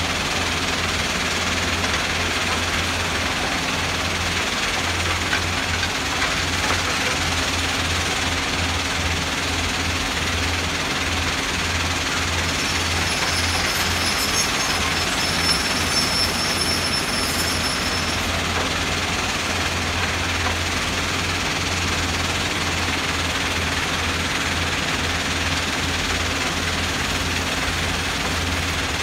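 Diesel excavators working stone, heard with the steady rumble and rattle of a stone-crushing plant, a low throbbing engine hum under it. About halfway through, a thin high whine lasts a few seconds.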